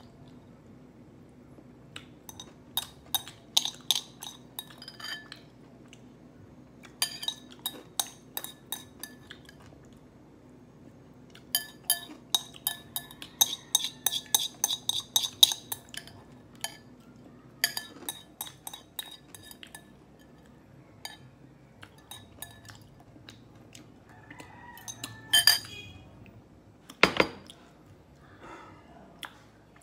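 Metal chopsticks clinking and scraping against a ceramic bowl in quick runs of taps, scooping out the last of the sauce. A single heavier knock near the end.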